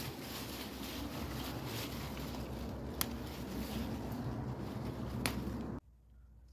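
Steady outdoor noise and rumble on a handheld phone microphone, with two sharp clicks, stopping abruptly near the end.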